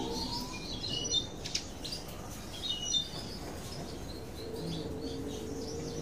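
Small songbirds chirping in short, high bursts, loudest about a second in and again near three seconds, with a few soft clicks.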